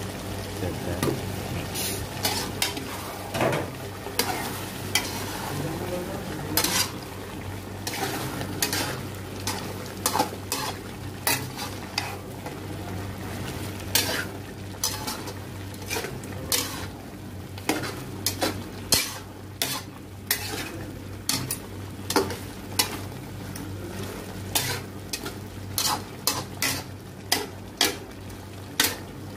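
A metal spatula scrapes and knocks against a metal pot while stirring a chicken and potato curry as it fries, with a sizzle underneath. The scrapes are irregular and come faster near the end, over a steady low hum.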